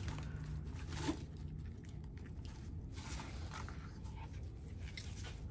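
Faint rustling, crinkling and light scraping as artificial wreath greenery and a chenille stem are handled and twisted onto the wire frame, over a steady low hum.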